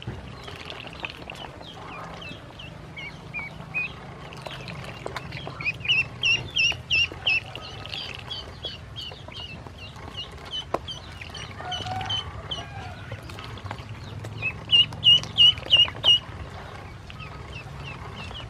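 A group of domestic ducklings peeping, a busy chatter of short high chirps. Two louder runs of about five quick peeps stand out, around six seconds in and again about fifteen seconds in.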